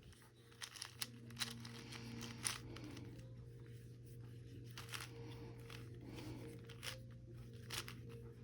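Plastic Rubik's cube layers being twisted by hand: irregular short clicks and scraping turns, over a low steady hum.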